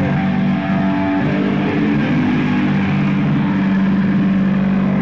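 Loud, sustained distorted electric guitar and bass drone through stage amps, one held chord whose pitch steps once about a second in.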